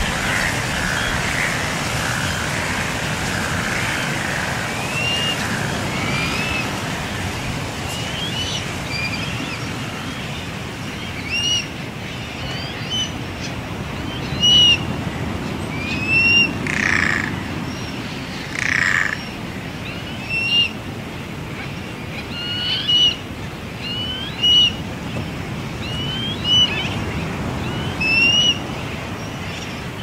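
Sooty, noddy and fairy terns calling: a string of short, repeated rising calls that come more often after about ten seconds, with two lower, louder calls in the middle, over a steady background hiss.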